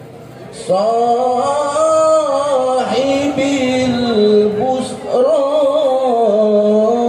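A solo voice singing a sholawat, an Islamic devotional chant, in long ornamented phrases that waver in pitch. It starts about a second in, with two brief breaks between phrases.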